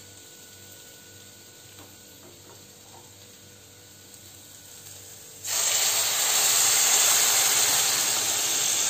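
Quiet kitchen room tone with a few faint clicks, then about five and a half seconds in a sudden loud hissing sizzle as cooked drumsticks and their cooking water are poured into a pan of hot masala.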